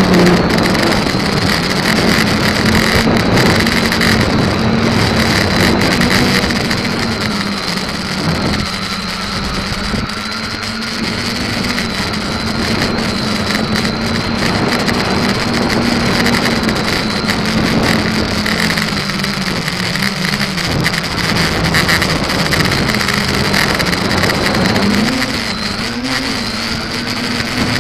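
SK450KK2 quadcopter's electric motors and propellers running in flight, a steady hum that wavers up and down in pitch as the throttle changes, over a continuous rushing noise.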